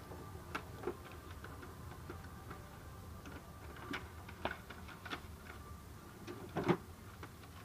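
Scattered light clicks and taps of plastic parts inside an HP LaserJet Pro M28a laser printer as hands pull packing material out of it. A sharper knock comes about a second before the end.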